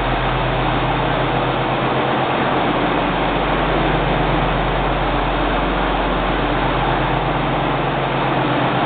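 The diesel engine of a 2004 John Deere 8420 tractor idling, a steady, unchanging drone.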